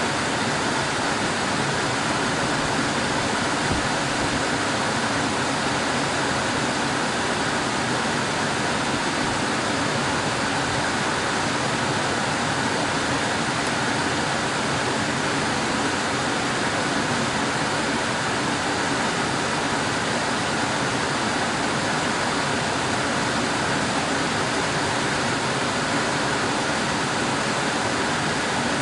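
Air conditioner running: a steady, even rush of blowing air with no change in level.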